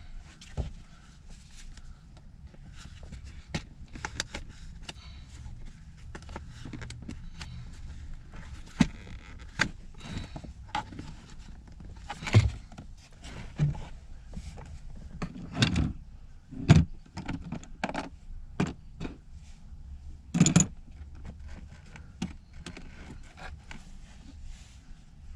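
Plastic car interior trim and its fittings being handled and pushed into place: scattered clicks, scrapes and knocks, with several sharper thunks through the middle.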